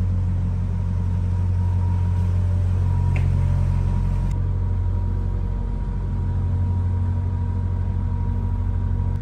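A narrowboat's engine running steadily while the boat is under way: an even, low rumble.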